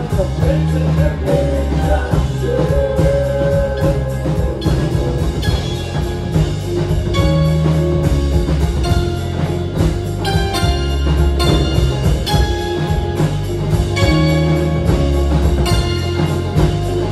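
A live alt-country band playing loudly, with banjo, pedal steel guitar, double-neck electric guitar and drums over a heavy low end. The passage is mostly instrumental.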